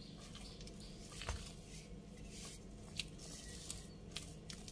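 Chocolate banana cake batter being stirred with a spatula to mix in raisins: faint squishing with a few light, scattered clicks against the bowl.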